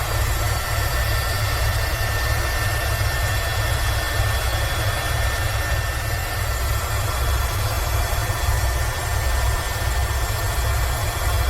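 Airbus H130 (EcoStar) helicopter in flight: a low, steady rotor and engine rumble with a thin, steady turbine whine above it and an even hiss of airflow.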